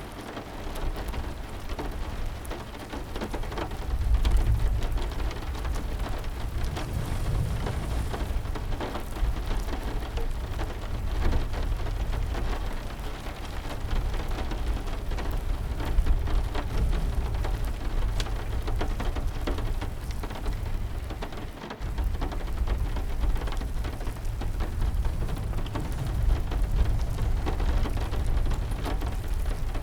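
Steady heavy rain with a deep low rumble that swells and fades, mixed with scattered sharp crackles from a burning fire. The sound drops briefly about two-thirds of the way through, then resumes.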